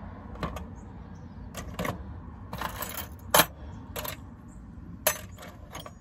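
Keys and small metal lock parts clinking and clattering as they are moved about on a work surface, a string of separate metallic clinks with the sharpest one about three and a half seconds in.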